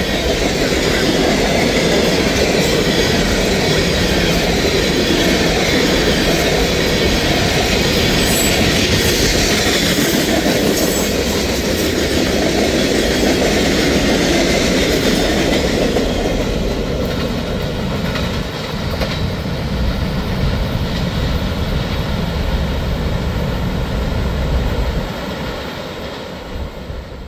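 Freight cars of a passing mixed manifest train rolling by at speed, a steady loud rumble and clatter of wheels on the rails. It gets quieter about two-thirds of the way through as the last cars go by, then fades out near the end.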